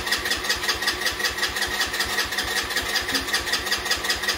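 Small single-cylinder engine of a 2007 Redcat 90cc ATV, just started, running with a steady, even pulsing beat.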